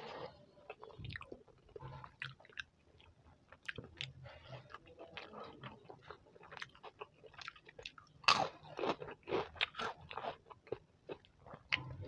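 Close-miked eating: wet chewing and mouth noises, then crisp fried papad being bitten and crunched, a run of sharp crackles from about eight seconds in that is the loudest part.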